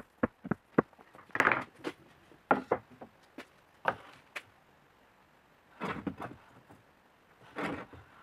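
Metal stool parts handled on a wooden workbench: a string of sharp knocks and clicks as the threaded spindle and its base plate are moved and set down, then two short scrapes in the second half.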